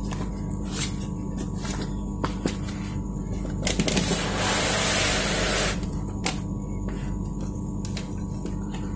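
Circuit boards being handled and set down on the plastic back of an opened LED TV: scattered light clicks and knocks, and a rustling hiss of about two seconds from about four seconds in. A steady electrical hum runs underneath.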